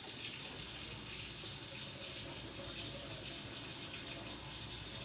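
Kitchen tap running in a steady stream, rinsing drained canned vegetables under the water.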